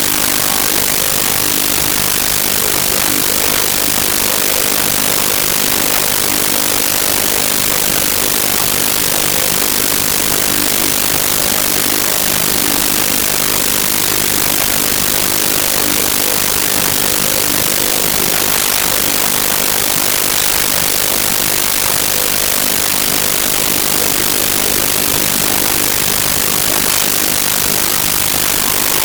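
Loud, unbroken hiss of static noise from a faulty audio recording, steady throughout and strongest in the high frequencies, drowning out any other sound.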